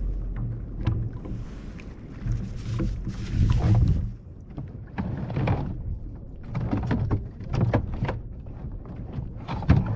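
Knocks and clicks of gear being handled on a sit-on-top kayak as the anchor is got out and readied for clipping on, over a steady low rumble. There is a hiss from about one and a half to four seconds in.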